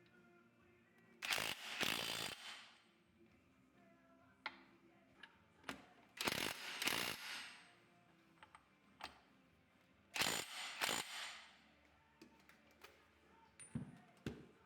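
Hand tools working on motorcycle engine parts: three short bursts of mechanical, ratchet-like noise about four seconds apart, each lasting about a second, with light metallic clicks between them.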